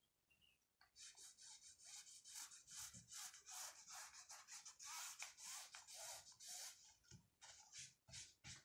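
Faint scratchy strokes of a line being marked along a clear plastic ruler on printed cotton fabric, several short strokes a second, starting about a second in.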